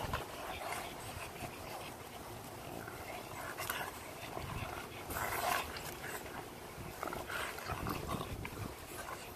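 Two English bulldogs play-fighting and mouthing each other, with heavy breathing and snuffling, the loudest bout about halfway through.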